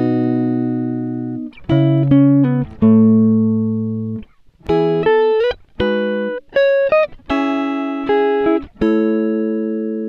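Background music: a plucked string instrument playing a run of notes and chords, each struck sharply and then fading, with a few short slides in pitch.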